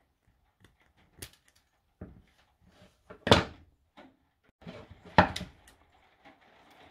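A series of sharp snips and knocks: thin nickel strip being cut with scissors and the pieces and scissors set down on a wooden workbench, two louder knocks about halfway and near the end.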